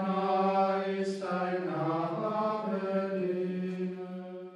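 Benedictine monks chanting in unison, men's voices held mostly on one reciting note, with a brief dip in pitch about two seconds in, fading near the end.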